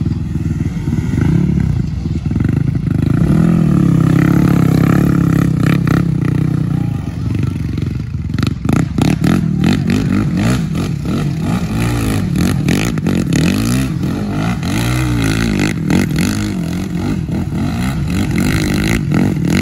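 ATV engine running under way, its pitch rising and falling with the throttle, with clattering knocks from about eight seconds in.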